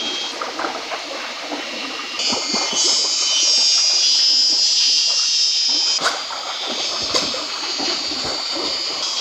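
A stream running steadily, with small scraping and cutting ticks from a machete splitting thin bamboo strips. A high steady buzz swells about two seconds in and drops back near six seconds, where there is a sharp click.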